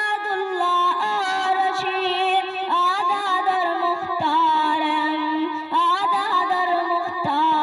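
A boy's voice singing a drawn-out melodic passage of a patriotic song into a microphone, long held and gliding notes without clear words.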